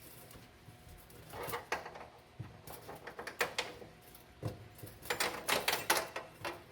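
Irregular small metallic clicks, rattles and scrapes in several short clusters, the busiest near the end: a steel seatbelt anchor plate and fish wire being handled and worked into the car's pillar.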